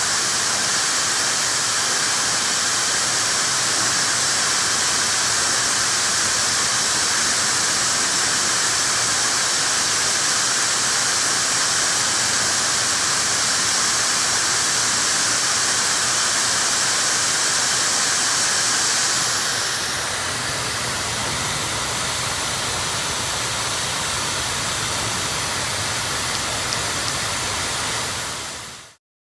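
Dyson hair dryer blowing steadily, a loud rush of air with a thin high whine. About two-thirds of the way through the whine drops out and the blowing gets slightly quieter. It cuts off suddenly near the end.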